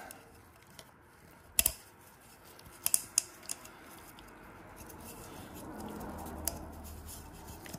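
Gloved hands stretching a new rubber O-ring over the threads of a VW/Audi 1.8 TFSI oil filter housing cap and seating it in its groove. Quiet rubbing and handling with a few sharp clicks, two close together about a second and a half in and a few more around three seconds.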